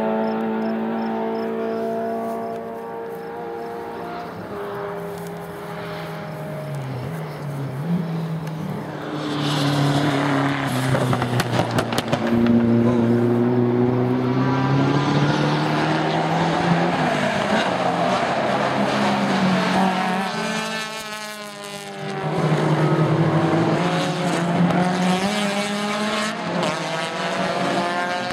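Touring race cars' engines passing on the circuit, their notes rising and falling as they accelerate, shift and slow for the corner, one car's sound overlapping the next. The sound dips briefly about three quarters of the way through, then swells again as more cars come by.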